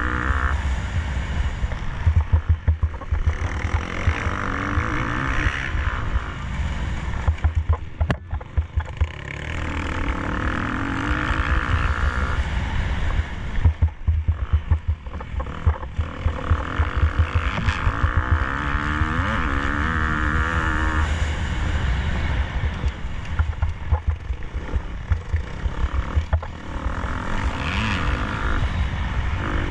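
KTM 250 SX-F four-stroke single-cylinder motocross engine racing, its revs climbing and dropping again and again as it is ridden hard through the gears. A heavy, jolting low rumble runs underneath.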